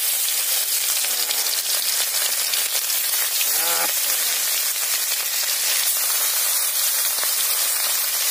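Pieces of snakehead fish sizzling steadily in hot mustard oil in a steel kadai, as more pieces are slid in one after another.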